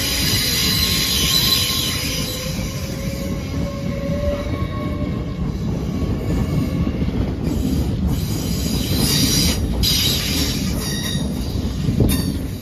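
Hull Trains Class 802 'Paragon' train moving along the platform. Its wheels on the rails make a steady rumble, with faint high whines in the first few seconds and a few sharp knocks in the second half.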